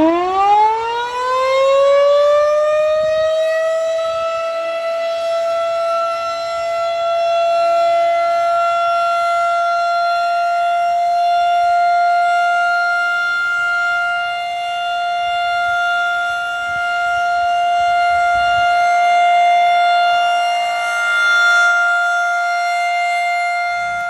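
Federal Signal rotating outdoor warning siren winding up, its pitch rising steeply over the first couple of seconds, then holding one steady wail. The sound swells and fades slowly as the horn rotates. This is the steady alert tone of a monthly siren test.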